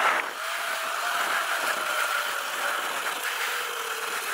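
Sur-Ron Light Bee electric dirt bike's KO Moto Factory Spec motor whining under way, its pitch slowly falling, over a steady rushing noise.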